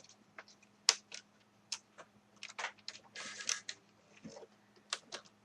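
Small sharp clicks and taps of hands working on a laptop's plastic chassis, with a brief scratchy rustle about three seconds in, as the wireless antenna leads are pushed back through their routing track.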